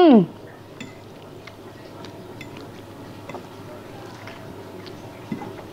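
A voice's drawn-out hum falls away just after the start. Then someone quietly chews a mouthful of seblak, with a few faint clicks of a metal fork against the bowl.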